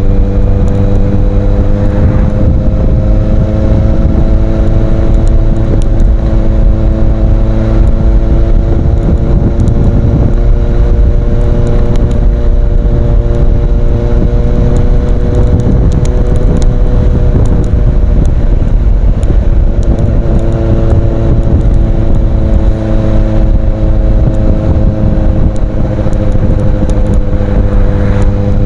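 Kawasaki Z800's inline-four engine through an Ixil aftermarket exhaust, running at a steady cruise, its pitch drifting slowly up and down. A heavy low rumble of wind on the microphone lies under it.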